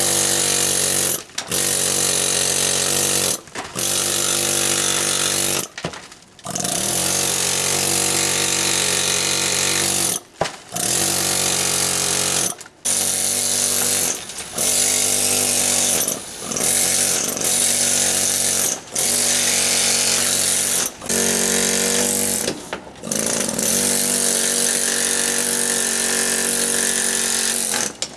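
Pneumatic carving hammer driving a chisel into stone, a loud continuous buzzing chatter. It runs in bursts of one to four seconds, with short pauses between them as the chisel is repositioned.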